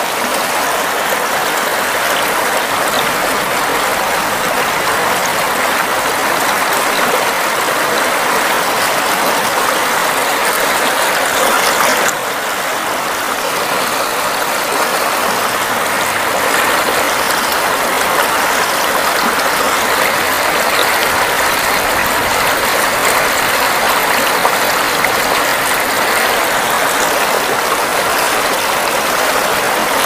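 Fast-flowing river water rushing over rocks in a rapid: a steady, even rush of splashing water, with a slight break in the sound about twelve seconds in.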